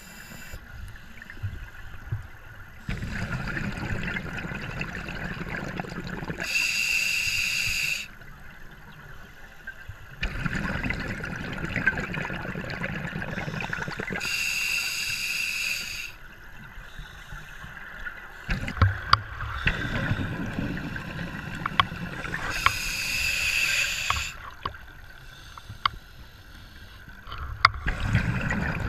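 Scuba diver breathing through a regulator underwater: slow breaths about eight seconds apart, each a stretch of low bubbling rumble with a short high hiss, three times.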